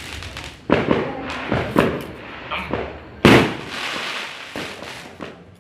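Fireworks going off: three loud sharp bangs, about a second, two seconds and three seconds in, each trailing off in a crackle, with smaller pops between.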